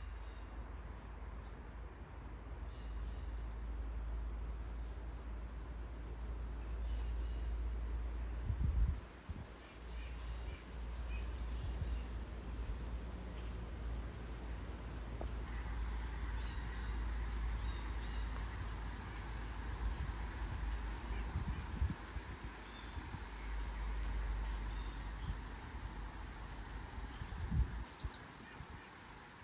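Outdoor ambience of insects trilling steadily in a high, thin tone that grows louder about halfway through, over a low rumble on the microphone.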